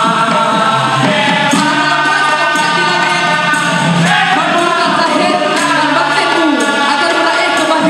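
Dikir barat troupe performing: a lead singer singing into a microphone with the chorus singing along, over hand percussion.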